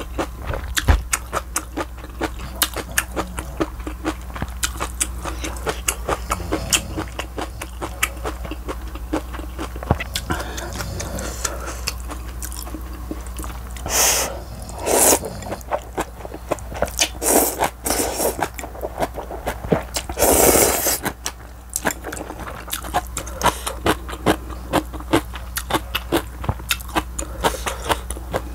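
Close-miked eating sounds: a steady stream of wet chewing clicks, with a run of several loud slurps of thin wheat noodles in broth near the middle.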